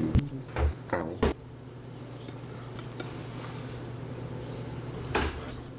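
Kitchen cookware and utensils knocking and clattering: a quick run of four knocks in the first second and a half, then one more near the end, over a steady low hum.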